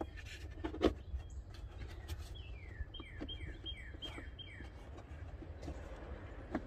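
A bird singing a quick run of about six down-slurred whistled notes, over scattered light clicks and knocks of hand work, the loudest knock about a second in.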